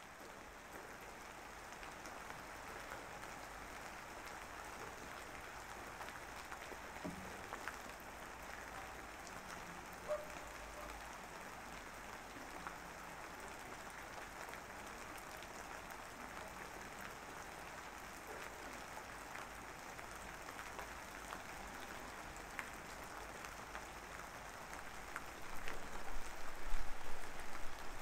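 Faint, steady rain ambience: an even hiss of rainfall with scattered light drop ticks, growing louder and more uneven near the end.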